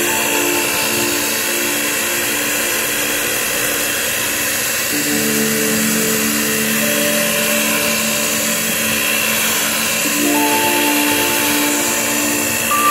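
Electric hand mixer running steadily, its beaters whipping cream cheese frosting. Soft background music with sustained chords plays underneath.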